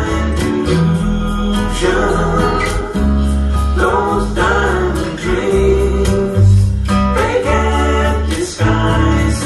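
A song with guitar and singing played through home-built three-way coaxial open-baffle speakers, with 15-inch Eminence bass drivers and Eminence PSD2002S compression-driver tweeters, as a listening test of the newly replaced tweeters. It is picked up by the camera's microphone in the room.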